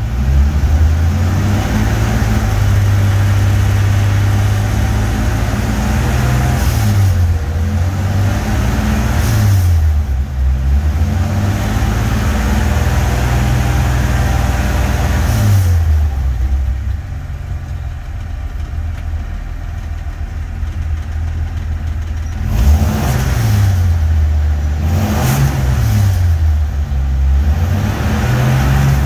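Freshly rebuilt flathead six of a 1951 Dodge B3B truck, heard from inside the cab, running with its speed rising and falling several times. It settles lower and quieter for a few seconds past the middle, then is revved up and down in quick succession near the end.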